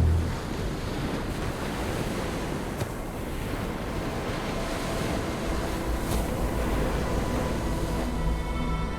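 Sea waves washing onto the shore in a steady rush, with wind buffeting the microphone.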